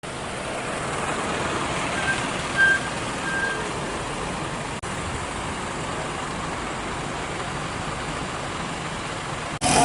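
Steady road traffic noise, with a few short high beeps about two to three seconds in.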